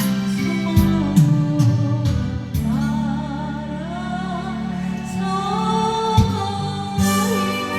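Background music with sustained keyboard chords and a wavering sung melody line in the middle, in the manner of gospel music.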